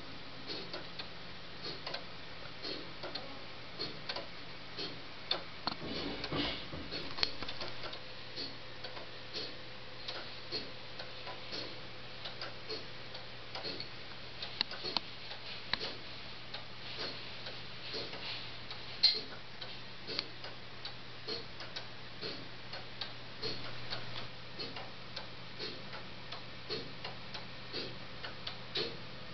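A 3D-printed plastic, weight-driven pendulum clock of Comtoise/Morbier type ticking steadily as its escapement beats, in short, evenly spaced clicks. One click about 19 seconds in is sharper and louder than the rest.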